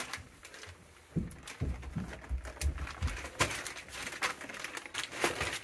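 Water sputtering and gurgling out of an old water heater's opened drain valve as the tank is drained of brownish, sediment-laden water, in low uneven pulses with a few clicks as the valve is handled.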